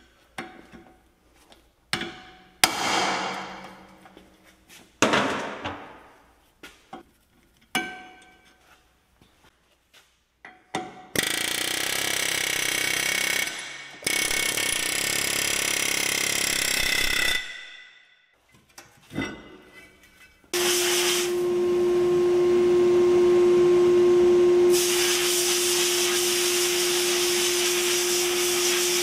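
Several ringing metal clanks at the brake rotor. Then a pneumatic air hammer runs in two long bursts against the rotor's hub. Then a sandblast cabinet starts: first a steady hum from its vacuum motor, and about four seconds later the hiss of the blast air comes in as a part is blasted.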